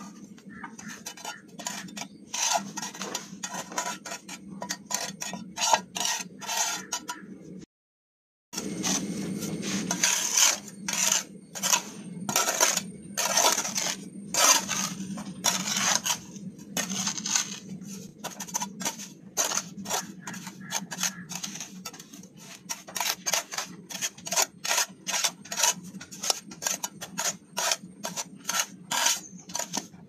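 A hand scoop scrapes up sand and tips it into the narrow gap between two brick walls, over and over, in quick scraping and pouring strokes. A steady low hum runs underneath, and the sound drops out for a moment a little under eight seconds in.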